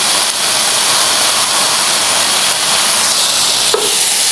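Meat-filled flatbread sandwiches sizzling in the meat's fat on an electric contact grill, a steady hiss as the bread crisps in the fat, with a small click near the end.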